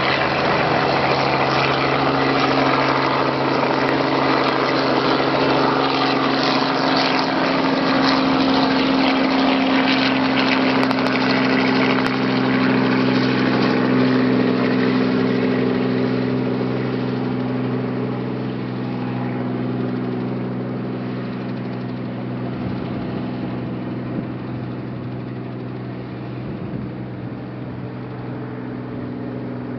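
Light helicopter with a two-bladed main rotor lifting off and flying away: a steady engine and rotor drone that fades gradually over the second half as it moves off.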